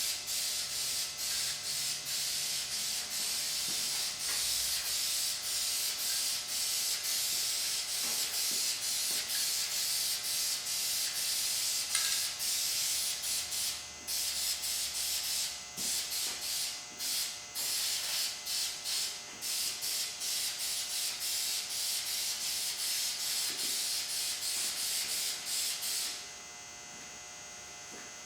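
Aerosol can of Krylon black spray paint for plastics hissing in repeated short passes, broken by brief pauses between strokes, stopping a couple of seconds before the end: light coats being laid on a plastic bumper part.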